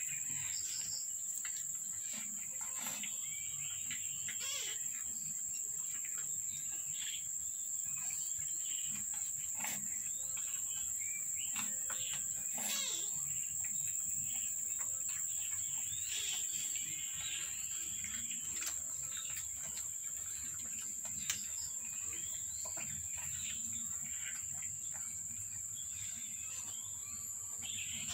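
A steady, high-pitched insect drone, like crickets, runs throughout, with scattered short chirps and clicks over it.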